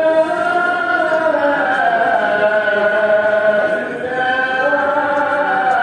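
A voice chanting long, drawn-out notes that slide slowly up and down in pitch, with a short break about four seconds in before the chant carries on.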